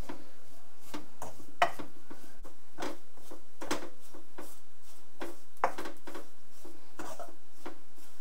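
Wooden spatula stirring and scraping grated coconut as it dry-roasts in a pan, in short irregular strokes about once a second.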